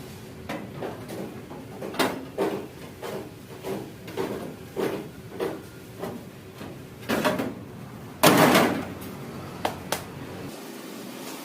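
Hand hammer blows on a steel body panel during manual panel beating: a run of sharp knocks roughly every half second to second, then a longer, louder burst of metal noise and two short knocks near the end.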